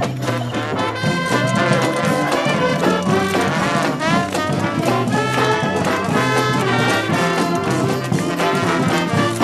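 Street brass band playing, horns such as trombones and trumpets over a steady drum beat.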